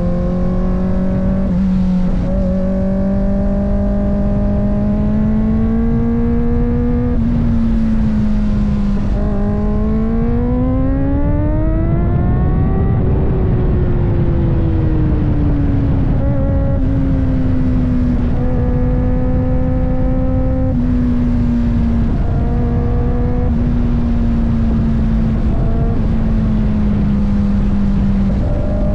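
Kawasaki ZX-4RR's 399 cc inline-four engine running while ridden. The pitch mostly holds steady, climbs sharply from about ten seconds in to a peak near thirteen seconds, then falls slowly back. A steady rushing noise lies beneath.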